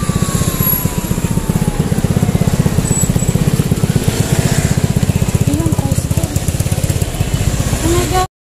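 Street traffic with a small motorcycle engine running close by, a fast, even throb. The sound cuts off abruptly near the end.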